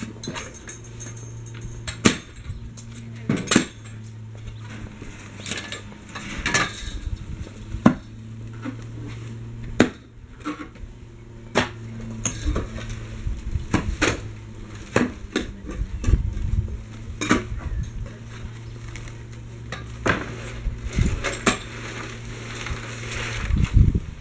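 A long metal digging bar is jabbed down into a post hole again and again, giving sharp metallic clinks and scrapes as it strikes stones and earth, at irregular intervals of a second or two. A steady low hum runs underneath.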